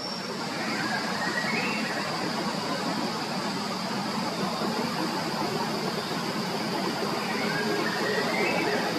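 Steady rushing background noise, with a short rising chirp about a second and a half in and another near the end.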